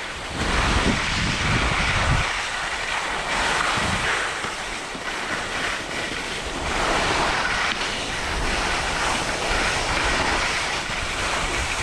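Elan alpine skis scraping and hissing over packed, chopped-up snow while carving turns, mixed with wind rushing over the action camera's microphone. The scraping swells and fades every second or two with the turns.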